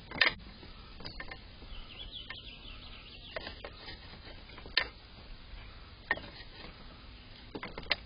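An animal eating close to the microphone: irregular crisp crunching clicks, with a few louder cracks, one just after the start and others near the middle and the end.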